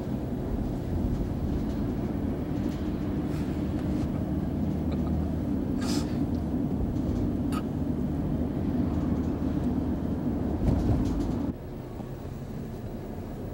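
Steady low rumble of road and engine noise inside an SUV's cabin while it is being driven, with a few short clicks near the middle. Near the end the rumble drops suddenly to a quieter level.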